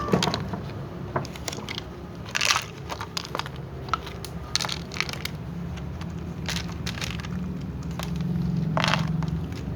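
Cats crunching dry food: irregular crunches and clicks, with a few louder bursts.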